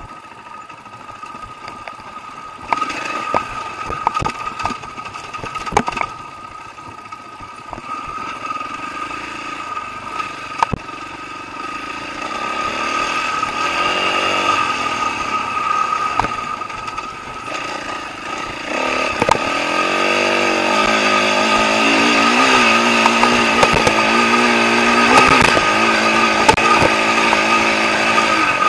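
Dirt bike engine running under a rider on a trail, its pitch rising and falling with the throttle. It is fairly quiet at first and grows louder about halfway through, then louder again near two-thirds of the way, with occasional sharp knocks.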